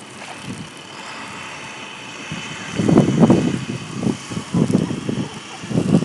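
Blizzard wind rushing and buffeting a phone microphone, with loud irregular gusts from about three seconds in.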